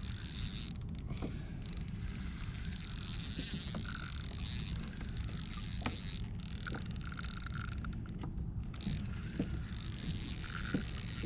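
Spinning reel being wound in against a hooked fish, its gears running with faint ticking, over a steady low rumble of wind on the microphone.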